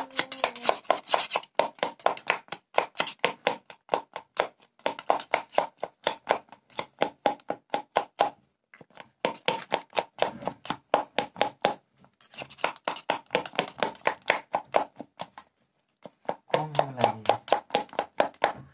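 Rapid, rhythmic knocking of a kitchen tool crushing the tamarind chutney ingredients by hand. It comes at about five strokes a second, in runs of two to four seconds with short pauses between.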